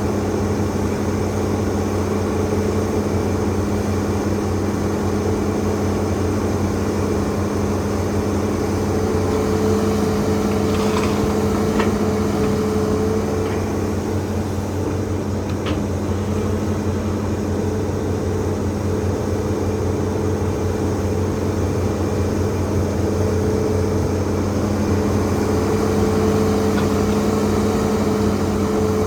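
Hitachi ZAXIS200 excavator's diesel engine running steadily with its hydraulics, an even drone that swells slightly a couple of times, with a few light knocks near the middle.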